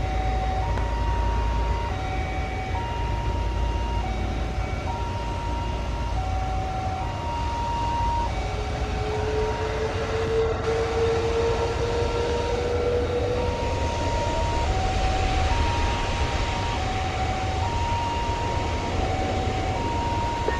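Wide-body twin-jet airliner's engines running at the start of the runway: a steady low rumble, with a whine that climbs slowly in pitch for several seconds mid-way as the engines spool up for the takeoff roll. Through it runs a repeating two-note electronic beeping, a higher note then a lower one, about once a second.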